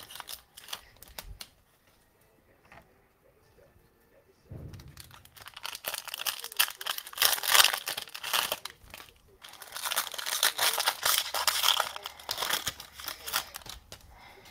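Cellophane wrapper of a Panini Mosaic football card pack being torn open and crinkled by hand. It begins about four seconds in, after a quiet stretch, with a short break midway.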